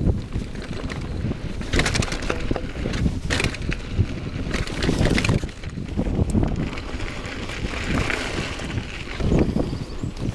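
Wind rushing over a GoPro's microphone as a Commencal Meta HT hardtail mountain bike rolls along a dirt trail, with tyres crunching and the bike rattling and knocking over bumps.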